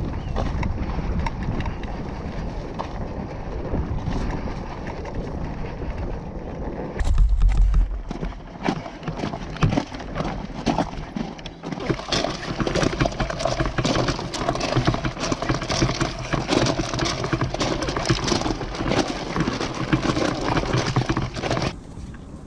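Motorcycle rolling along a gravel road with wind rumbling on the microphone. After a thump about seven seconds in, dense crunching of boots and tyres on coarse gravel as the dirt bike is wheeled along by hand.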